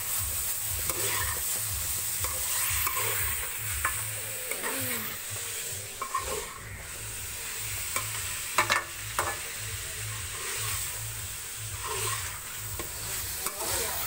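A metal spoon stirring and scraping aloo keema (minced meat with potatoes and tomatoes) as it fries in an aluminium pot, over a steady sizzle. A few sharp clinks of the spoon against the pot come about eight and a half seconds in.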